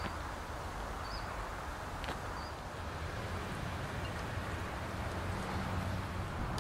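Outdoor ambience: a steady hiss of wind with a low rumble, and a few short, high bird chirps in the first couple of seconds.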